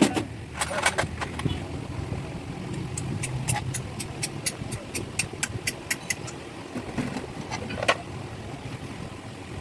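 A run of sharp clicks, about four or five a second for a few seconds, with a couple of louder knocks, over a steady low rumble.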